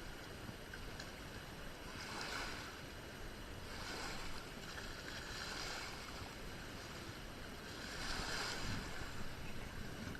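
Water rushing and washing, swelling every two to three seconds, with some wind on the microphone.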